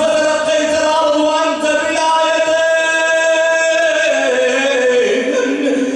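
A man's voice chanting a mournful Arabic lament for Husayn (majlis recitation), sung into a microphone. He holds a long, wavering note, then slides down in pitch before breaking off near the end.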